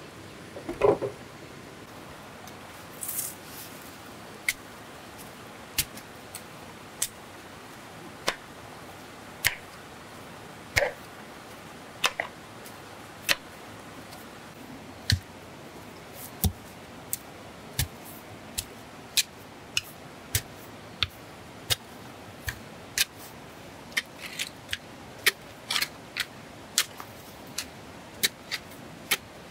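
A hoe striking into earth and gravel in a steady rhythm, a sharp chop about once a second that comes faster near the end. A heavier thump comes about a second in.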